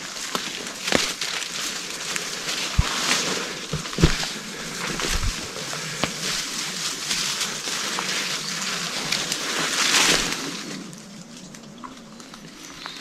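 Footsteps pushing through dense wet bush undergrowth: ferns and branches brushing and rustling against clothing, with twigs snapping. The sound is loudest about ten seconds in and quieter for the last couple of seconds.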